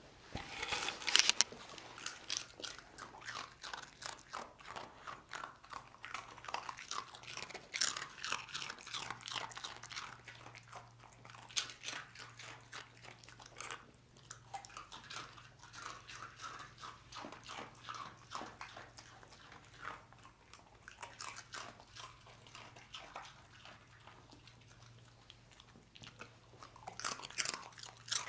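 A dog crunching and chewing crunchy twisted pasta snacks, in an irregular run of crisp crunches and bites.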